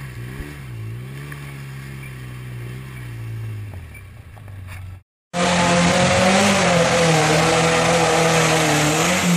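Polaris RZR XP 900 UTV engine idling with a slightly wavering pitch that sinks and fades near the fourth second. After a sudden cut, a much louder engine revs and works hard, its pitch rising and falling, as a sand rail climbs a steep dirt hill.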